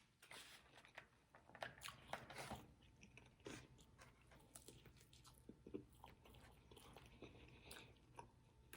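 Faint close-up chewing and biting of food, with soft irregular crunches and small mouth clicks.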